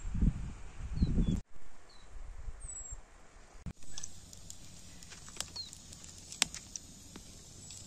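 Birds giving short, falling chirps, over low rumbling in the first second or so. After a cut about four seconds in, scattered sharp crackles and pops from split wood burning hot in a small metal grill.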